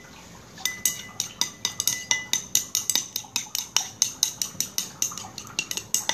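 A utensil clicking against a bowl as a thickening aloe vera gel mixture is stirred by hand, at about four or five clicks a second after a brief pause at the start. The mixture is close to setting into a gel.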